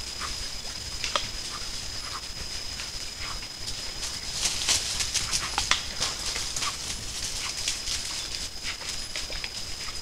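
Night-time forest sound picked up by a trail camera: a steady high-pitched whine runs throughout, with scattered short clicks and rustles in leaf litter that grow busiest around the middle.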